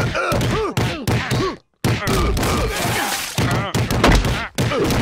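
Cartoon fistfight: a rapid flurry of punches and thuds mixed with men's grunts and yells. The sound cuts out briefly about one and a half seconds in.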